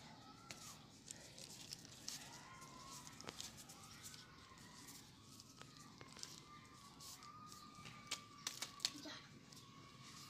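Fingers working through hair to pick out nits: faint rustling of hair with small sharp clicks from fingernails pinching along the strands, and a quick run of louder clicks about eight to nine seconds in.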